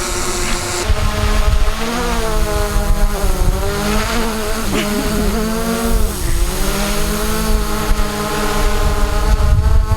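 DJI quadcopter drone hovering close by, its propellers giving a buzzing whine whose pitch rises and falls repeatedly as the motors adjust. The propeller downdraft buffets the microphone with a low rumble.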